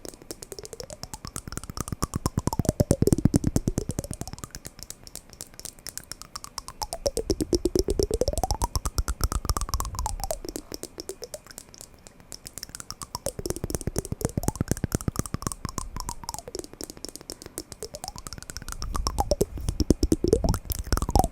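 Wooden blocks knocking in a fast, even clatter of many knocks a second. A hollow ringing tone in the knocks rises and falls in pitch in slow waves, with the clatter swelling louder and fading about every five or six seconds.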